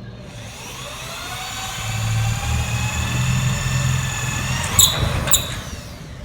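Power drill motor spinning up with a rising whine, then running steadily at speed. Two sharp clicks come near the end, and the drill stops.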